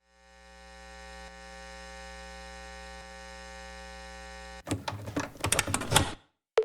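Electronic intro music: a steady buzzing hum with many overtones fades in and holds. About four and a half seconds in it cuts off into a flurry of crackling, glitchy electronic hits.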